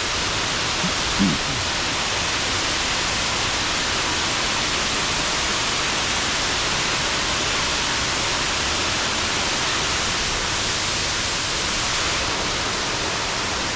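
Waterfall pouring, a steady, dense rush of falling water. A brief voice sounds about a second in.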